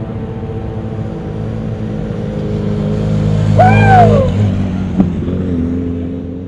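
Off-road race vehicle engine running hard, growing louder to a peak about three and a half seconds in, where its pitch briefly rises and falls as it revs or passes. A sharp click follows about a second later, and the engine fades away near the end.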